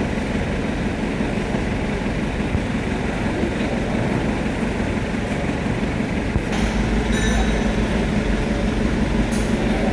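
Steady machine noise, running, that gets louder and deeper about six and a half seconds in, with a brief high squeal just after.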